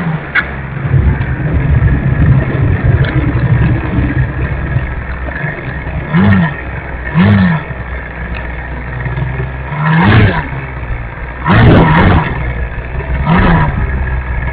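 Audio from a camera mounted on a radio-controlled model plane rolling over pavement and then rough ground: a steady motor whine over rumble and rattling. Five short, loud surges come in the second half.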